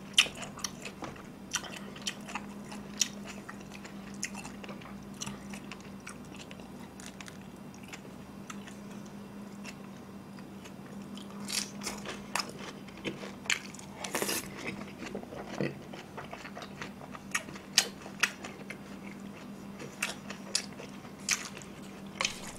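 Close-miked chewing of crispy glutinous-rice-battered sweet and sour pork, with many short sharp crunches and bites scattered throughout. A faint steady low hum runs underneath.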